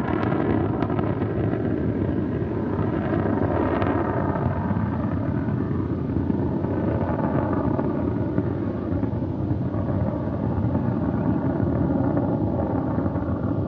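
Soyuz rocket's first-stage engines (four strap-on boosters and the core stage) burning during ascent: a steady, rough rumble that holds even throughout.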